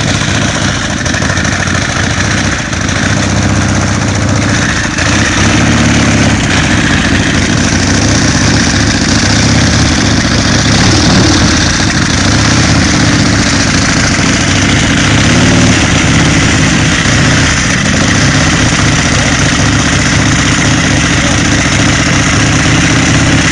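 Harley-Davidson chopper's V-twin engine running loudly at low revs, its pitch swelling and falling a few times under light throttle as the bike rolls slowly.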